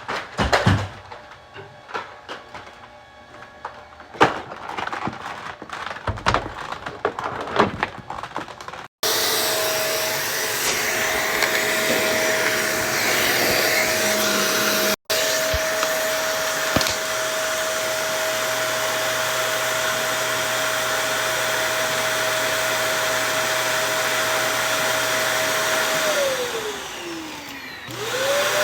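Vacuum cleaner motor running with a steady whine. After about nine seconds of scattered knocks and clicks it starts, and near the end it winds down as it is switched off, then starts up again with a rising whine.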